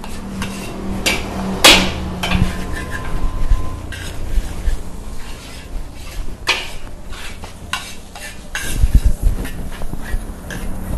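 Metal spatula scraping and knocking against a large iron wok as fried rice is stirred fast over a high gas flame, with the rice sizzling. Irregular clanks and scrapes, the loudest knock about two seconds in.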